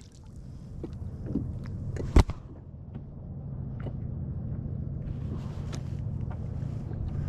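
Low steady rumble of wind and water around a kayak at sea, with a few faint clicks and one sharp knock about two seconds in.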